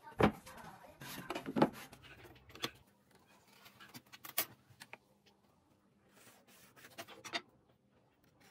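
Handling noise on a workbench: two sharp knocks in the first couple of seconds as a wooden board is set down on the table, then scattered lighter clicks and taps of a steel ruler and pencil on the pine board.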